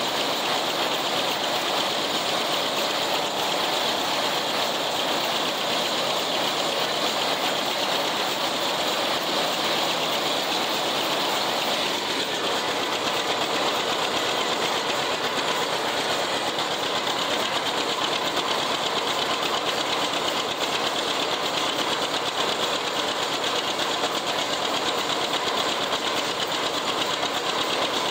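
John Deere 70's two-cylinder engine running steadily while pulling an International 990 haybine through the hay, with the haybine's cutting and conditioning mechanism running along with it. The noise is loud and steady, as heard from the operator's seat.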